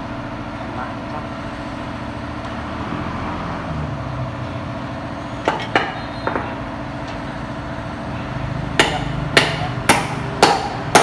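Steady machine hum, then a few light clicks. Near the end comes a run of sharp metallic knocks, about two a second, like hammer strikes on metal.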